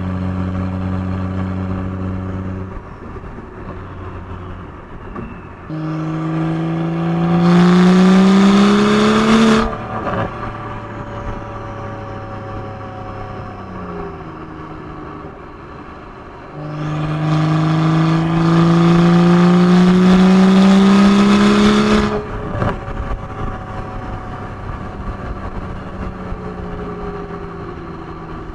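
BMW N55 turbocharged inline-six exhaust through a VRSF catted downpipe, heard at the tailpipe while driving. It makes two hard accelerations, each a rising engine note held for about four to five seconds that cuts off suddenly, with quieter steady running between them. A single sharp crack comes just after the second pull.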